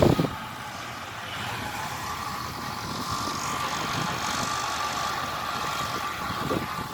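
Kubota DC-70 rice combine harvester running steadily, its engine noise carrying a steady whine.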